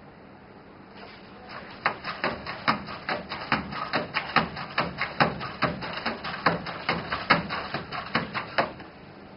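Aldebaran Nao humanoid robot stepping in place to turn, its feet tapping on the tabletop about four times a second over the whirr of its joint motors. The stepping starts about a second and a half in and stops shortly before the end.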